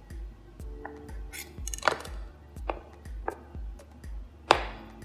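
A kitchen knife chopping through a block of cheese and knocking on a plastic cutting board, several sharp knocks with the loudest near the end, over background music with a steady beat.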